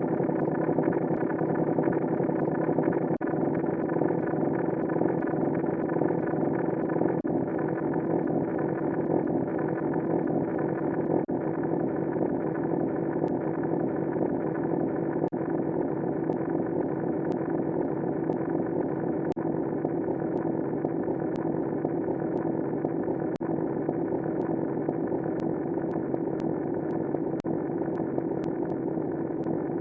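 A ringtone digitally sped up to an extreme degree, so that its melody merges into one steady, dense drone that does not change in pitch, with faint ticks recurring every few seconds.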